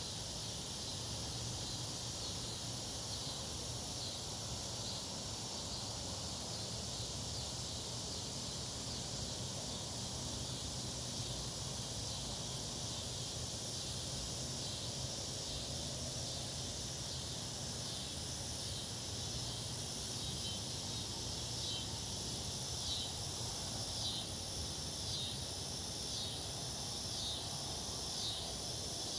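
Summer insect chorus: a steady high-pitched buzzing drone, joined in the second half by a run of quick, repeated chirps.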